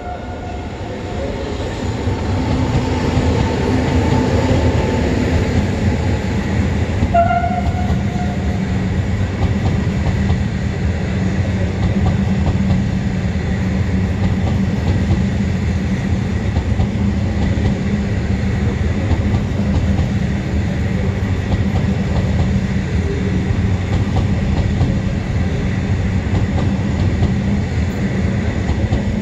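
Transfer train of Trenord ETR 521 'Caravaggio' units hauled by E464 electric locomotives rolling past at an even pace, with a steady rumble of wheels on the rails. A short horn note sounds about seven seconds in.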